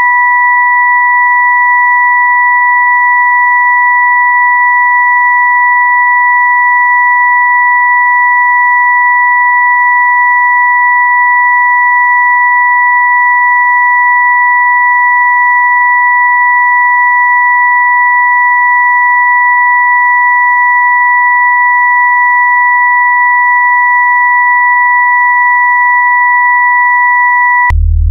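Synthesized sine tones of a sound-therapy 'frequency' track: a steady high pure tone with a second one an octave above it, held unchanged. Just before the end they cut off suddenly and a deep low hum takes over.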